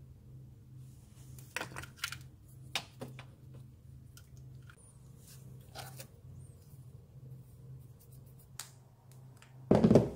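Handling noise: scattered short clicks and rustles of objects being picked up and moved, over a faint steady low hum, ending with a loud low thump just before the end.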